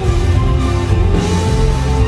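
A live stage performance of a rock-styled song, with drums and guitar under a long held melody note that dips and then rises about a second in.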